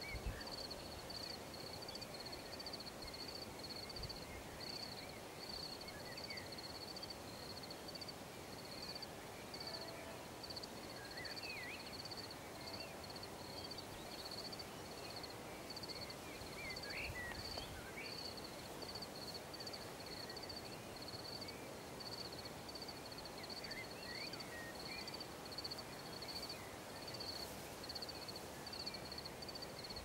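Crickets chirping: a steady run of short, high-pitched chirps, several a second, over a low hiss of night-time background noise.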